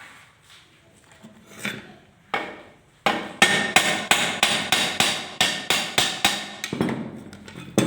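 A hammer striking metal in a quick run of blows, about four a second for nearly four seconds, with a slight metallic ring, then one more blow near the end.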